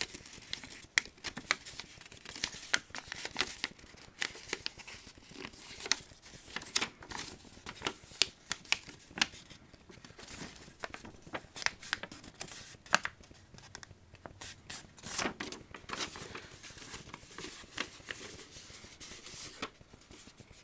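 Sheet of paper being folded and creased by hand: irregular crinkling and rustling with sharp crackles as the sides of a sink fold are pinched and pressed flat.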